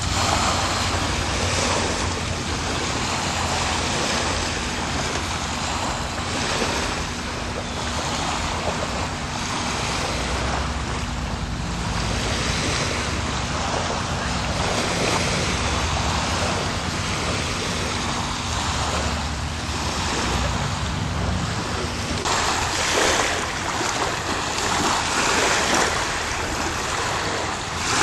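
Small Lake Erie waves lapping at the shore, mixed with wind rushing over the microphone. A steady low hum runs underneath and stops about three-quarters of the way through.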